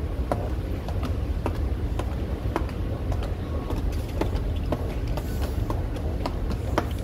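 Footsteps on hard stone stairs, short sharp steps at about two a second, over a steady low rumble in an underground metro station.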